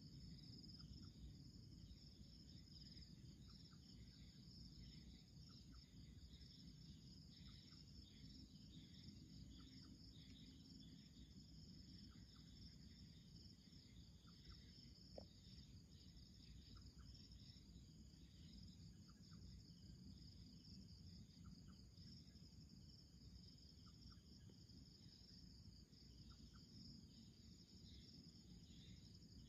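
Faint night insect chorus: crickets trilling steadily at a high pitch, with short faint chirps every second or so and one brief higher note about halfway through, over a low rumble.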